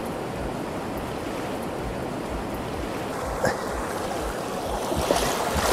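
Shallow river rapids rushing steadily around wading legs, with louder splashing near the end.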